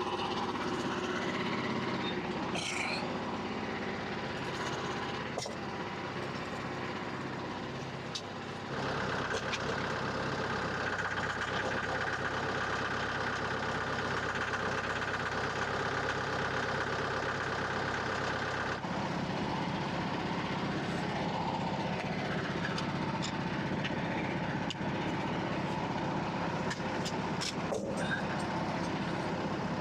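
Engine running steadily. A higher whine joins about 9 seconds in and drops out about 19 seconds in, as the engine's note changes.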